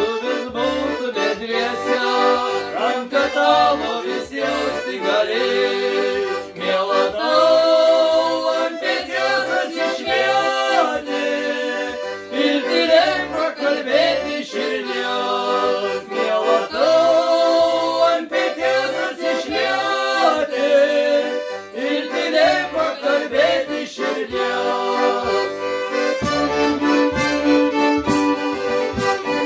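Two men singing a folk song to accordion accompaniment. About 26 seconds in the singing stops and a fiddle takes up the tune over the accordion, with light drum taps.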